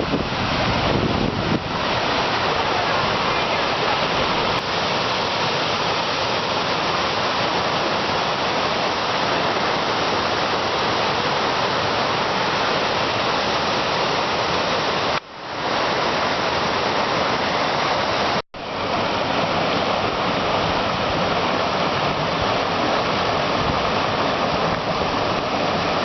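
Martin Creek's water rushing steadily over its cascades and falls. Wind buffets the microphone with a low rumble in the first second or two, and the sound breaks off for an instant twice, about halfway through and a few seconds later.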